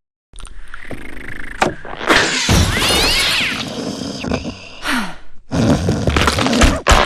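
A man snoring very loudly, in several long, rough snores one after another.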